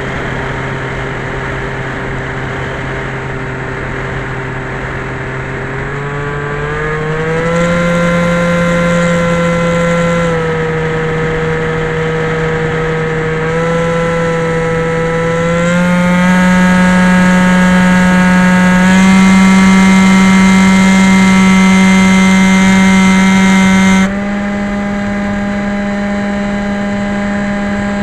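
Electric motor and propeller of a Skyhunter FPV model plane running, a steady pitched hum that steps up in pitch about six seconds in, dips a little and rises again in stages as the throttle changes. Near the end the hiss over it cuts off suddenly and the sound gets quieter while the hum holds its pitch.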